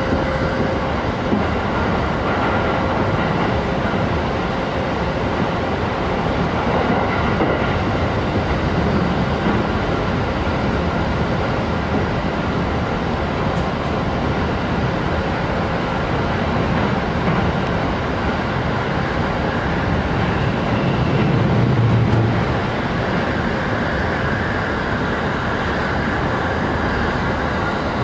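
Interior running noise of a Joban Line rapid commuter train car moving at speed: a steady rumble of wheels on rail with some clickety-clack. A deeper swell in the rumble rises and fades about three-quarters of the way through.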